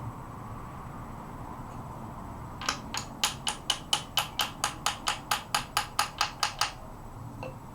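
Hammer tapping a locking wedge into a vintage wrought-iron locksmith's vise during assembly: a run of about seventeen quick, even metal-on-metal blows, roughly four a second, starting a little under three seconds in and stopping after about four seconds.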